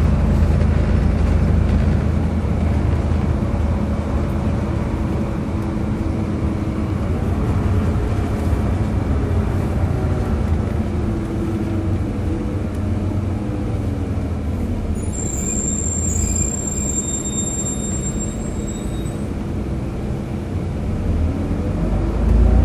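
Volvo B7RLE single-deck bus heard from on board, its engine and drivetrain running steadily in motion, with faint tones gliding up and down as the speed changes. A thin high-pitched squeal sounds for about four seconds a little past the middle.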